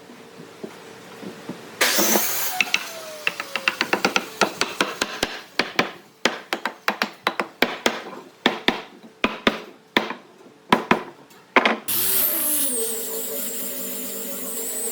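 Workshop sounds of wood being worked: many sharp, irregular knocks and taps. About twelve seconds in, a power tool starts up and runs steadily with a high whine.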